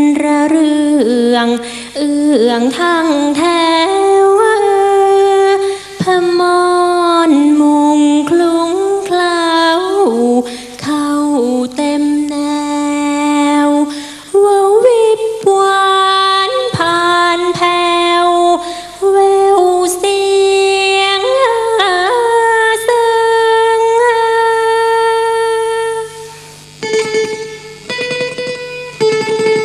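A female singer holding long, ornamented notes that slide between pitches in a Thai folk song. Near the end the voice stops and a plucked sueng, a northern Thai lute, comes through.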